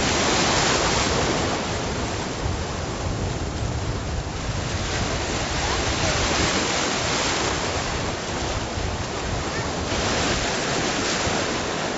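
Ocean surf breaking and washing around a person standing in the water, with wind on the microphone; the rush swells and eases every few seconds.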